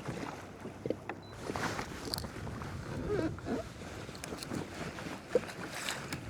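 Water sloshing against a kayak's hull, with a few sharp knocks and clicks of gear on the boat, the loudest about five seconds in.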